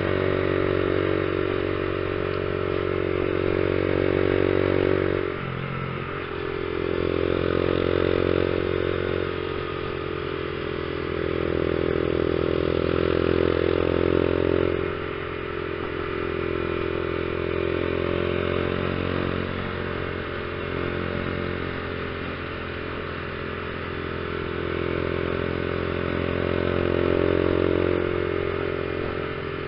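Honda CG 150 Fan's single-cylinder four-stroke engine running while riding, heard from the bike itself. Its note drops sharply about five seconds in and again around fifteen seconds, then climbs back up.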